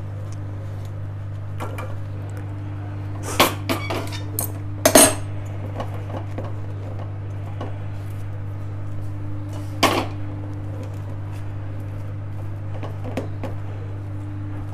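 A wooden spatula and steel kadai knock and scrape against a steel tray as sticky puffed-rice-and-jaggery mix is scraped in and spread. A cluster of sharp clinks comes about three to five seconds in and a single one near ten seconds, over a steady low hum.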